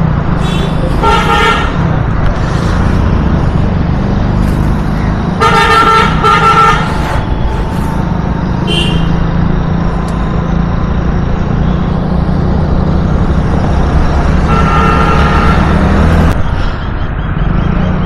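Street traffic: a steady low engine hum with vehicle horns honking, a short honk about a second in, two honks in a row around six seconds, a brief beep near nine seconds and a longer honk near the end.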